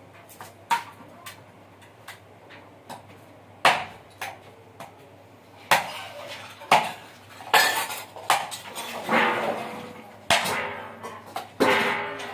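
Irregular sharp knocks and clatters of hard objects being handled on a concrete floor, with scraping in between. Sparse at first, then louder and busier in the second half.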